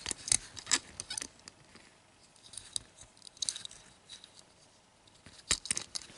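Scattered light clicks and taps of fingers handling a small die-cast metal toy car as it is turned and set down, with a sharper click about five and a half seconds in.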